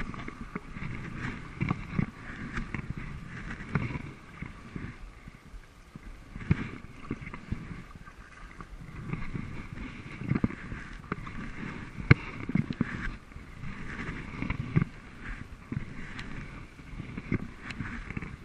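Sea kayak being paddled: repeated paddle strokes splashing and pulling through the water, with water washing along the hull.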